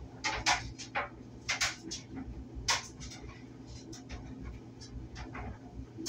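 Clothes dryer running: a steady low hum from the motor and drum, with irregular sharp clicks and knocks over it, the loudest about half a second, a second and a half and nearly three seconds in.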